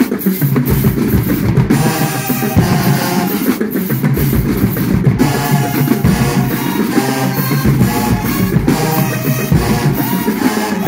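Marching band playing, with a heavy drum section of snare and bass drums under sustained brass phrases. The horns drop out briefly several times, leaving the drums alone.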